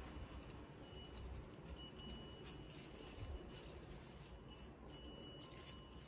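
Faint high chime tones ringing now and then over a low rumble.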